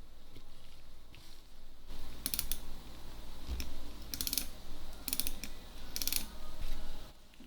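Small mechanism clicking and ratcheting in four short bursts of rapid clicks, the last three about a second apart.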